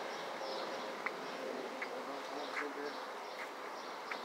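Faint steady buzzing hum with a few soft ticks.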